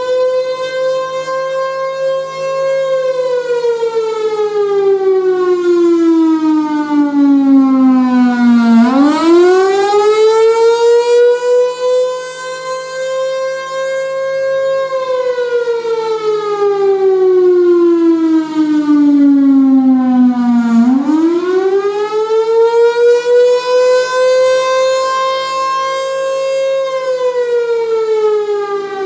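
Federal Signal Thunderbolt 1000 civil defense siren, a 6M Sutorbilt roots blower driving a single-tone chopper, sounding loud. Its pitch slides slowly down for about six seconds, then swings quickly back up and holds before falling again, twice.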